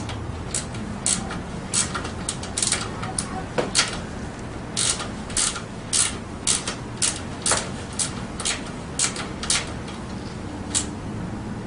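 Socket ratchet clicking in short irregular runs as the nut on a dirt bike's rear shock bolt is tightened down snug.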